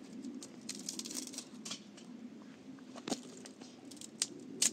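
Dry twigs snapping and crackling as they are broken by hand for a campfire: several sharp snaps, the loudest near the end, over a low steady hum.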